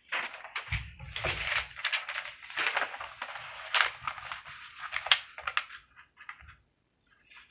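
A sheet of paper being handled and folded on a wooden table: crinkling and rustling, with a few sharp snaps of the paper and soft knocks against the table about a second in.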